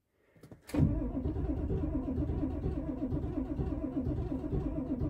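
1995 Ford F350's 7.3 L Powerstroke V8 turbo diesel being cranked over by the starter, starting suddenly a little under a second in with an even, pulsing beat, without catching. The owner hears a few dead cylinders in it: a worn-out, hard-starting engine.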